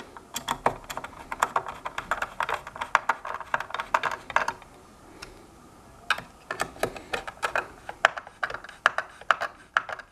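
Quick runs of small sharp clicks and taps from a hand screwdriver and loose parts being worked inside a hoverboard's plastic shell, with a short lull about halfway through.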